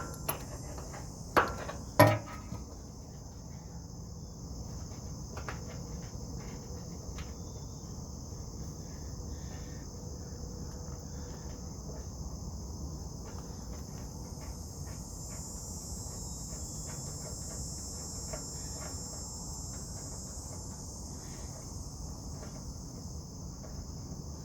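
Steady, high-pitched chorus of insects chirring throughout. Near the start come a few sharp metallic clinks as a wrench works on the skid steer's hydraulic hose fitting.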